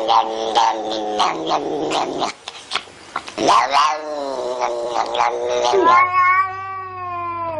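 A cat yowling: a run of short, wavering meows, a brief lull about two seconds in, then more calls and a long drawn-out yowl from about six seconds in that slowly falls in pitch.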